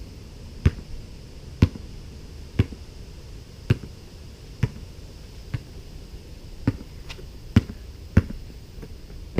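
A basketball being dribbled, bouncing about once a second, roughly nine bounces in all.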